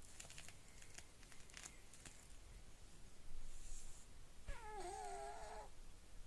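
An overweight American Shorthair cat snoring in its sleep: a breathy hiss a little past the middle, then a wavering, squeaky nasal tone lasting about a second.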